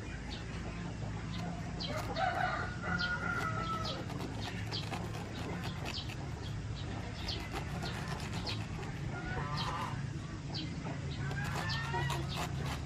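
Chickens clucking and a rooster crowing, with short sharp calls throughout and a longer bending crow about two seconds in and again near the end, over a steady low hum.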